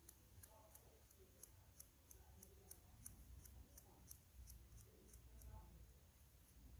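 Faint, quick scratching strokes, about three a second, of folded abrasive paper rubbed against the brass brush contacts on the end cap of a small cassette-player motor, cleaning the contacts. The strokes stop about five and a half seconds in.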